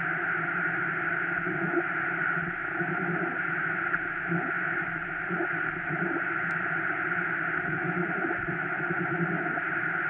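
Circuit-bent office telephone putting out a steady, harsh noise drone: a static-like hiss layered with several fixed buzzing tones that waver slightly as the hand works the rewired contacts.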